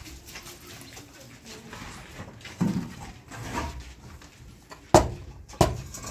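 Hand work with a shovel and building blocks: soft scrapes and thuds, then two sharp knocks about half a second apart near the end.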